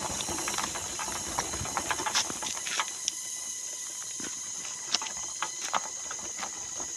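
Steady high-pitched outdoor hiss with scattered short clicks and ticks.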